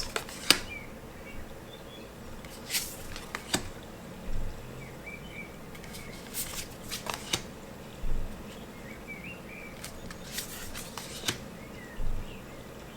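Tarot cards being handled and turned one by one: soft, scattered card slides and flicks, with a sharper click every second or so.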